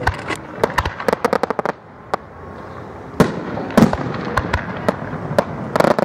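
Aerial fireworks shells bursting overhead: a quick string of sharp pops about a second in, a short lull, then louder single bangs from about three seconds on.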